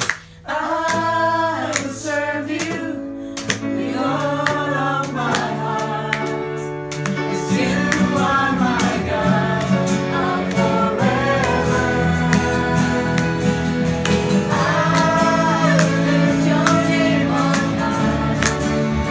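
Music: voices singing a melody together over instrumental backing, with a regular beat. A fuller, deeper accompaniment joins about seven and a half seconds in.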